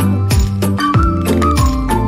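Background music with a steady beat of about three beats a second, over held notes and a simple melody.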